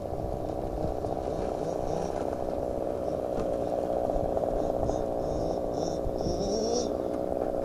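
Zenoah two-stroke petrol engine of a 1/5-scale FG Baja Beetle RC car running steadily at a distance, its pitch wavering slightly as the throttle changes.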